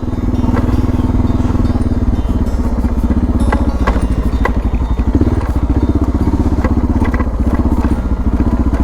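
Suzuki DR650's single-cylinder engine running with a steady, even low pulse, with a few sharp clicks over it around the middle.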